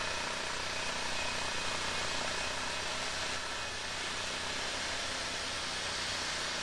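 Brideck Enterprise swing-mill sawmill's slabber bar and its engine running steadily under load while cutting through a black walnut slab, the hydraulic feed sped up to finish the cut.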